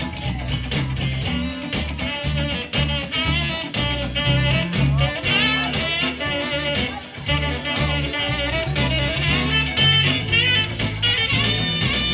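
Live band playing, with electric guitar, saxophones, bass and drum kit.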